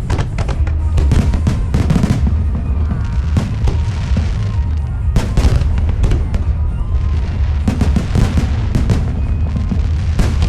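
Fireworks going off in quick runs of sharp bangs and crackles, over loud music with a heavy, steady bass.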